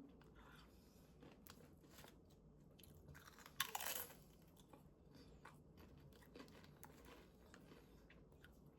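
Faint crunching and chewing of Doritos tortilla chips in the mouth, with one louder crunch about three and a half seconds in.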